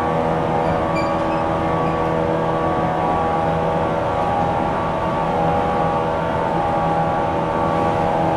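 Inside a JR West 475 series electric multiple unit motor car: a steady rumble with an electric hum of several fixed tones that holds level and pitch throughout.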